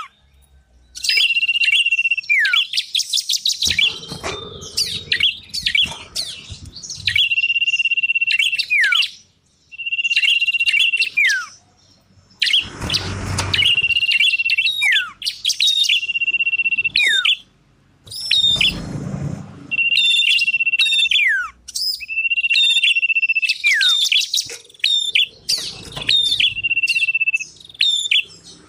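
Lure recording of small songbirds singing, the common iora (cipoh) and prinia/tailorbird (ciblek, prenjak) type: repeated long steady whistles, each ending in a quick downward slur, alternating with fast, high chattering trills. Three times a short burst of rushing noise sounds under the song.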